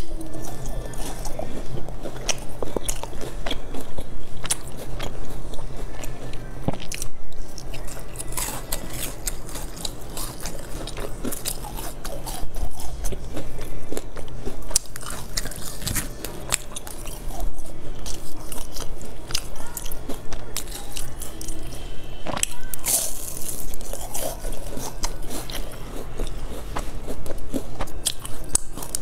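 Close-miked biting and chewing of round baked pastries, with many sharp crunches.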